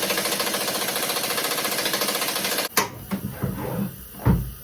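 A 3/8-inch air impact gun hammering rapidly on a bolt, loosening it. It stops suddenly about two-thirds of the way in, and a few metal clunks follow.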